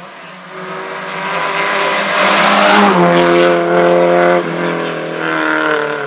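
Historic rally car engine at high revs, getting louder as the car comes on and peaking about halfway through. Its pitch drops suddenly about three seconds in, holds steady, falls again a second and a half later, then climbs.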